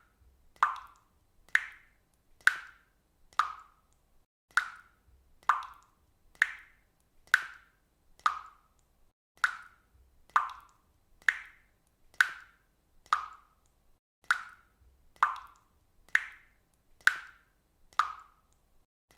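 Water dripping steadily, a single drop landing in water about once a second. Each drop is a short, sharp, pitched plop.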